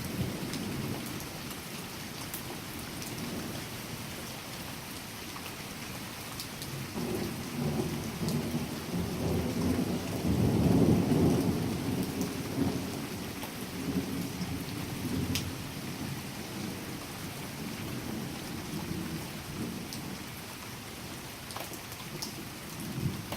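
Steady rain falling, with a long low rumble of thunder that swells about a third of the way in, is loudest around the middle and slowly dies away. A few sharp drip ticks stand out over the rain.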